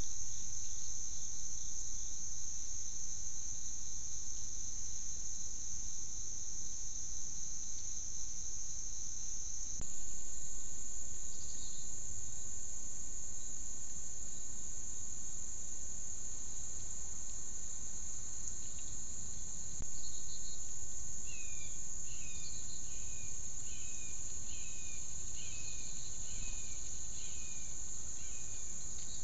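A steady, high-pitched insect chorus of crickets or katydids drones throughout and shifts slightly in pitch about a third of the way in. Later a bird joins with a quick, regular series of short falling chirps.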